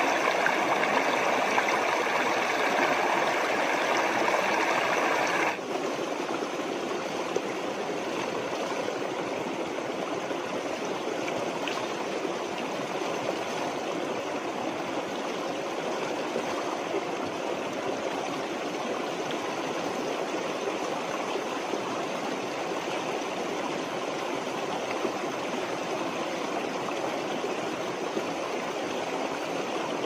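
Steady rushing and splashing of spring water; about five seconds in it changes abruptly and drops in level to a steady stream pouring from a pipe and splashing onto rocks.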